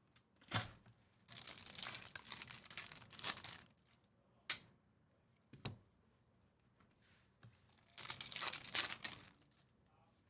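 Trading card pack wrappers being torn open and crinkled, in two long bursts of tearing, with a few sharp clicks and a knock in between.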